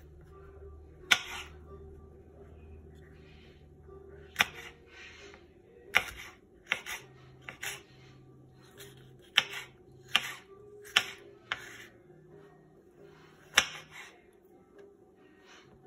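Chef's knife slicing mini sweet peppers on a bamboo cutting board: about ten sharp knocks of the blade striking the board at uneven intervals, several followed by a brief crunch of the knife going through the pepper.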